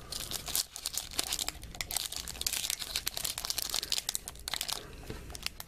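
Trading-card pack wrapper being crinkled and torn open by hand: a dense, irregular run of crackling and tearing.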